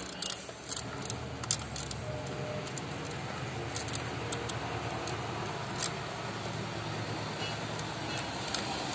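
Small metallic clicks and light rattles of crimped wire lugs and screw-terminal hardware being handled and fitted, scattered irregularly, over a steady low hum.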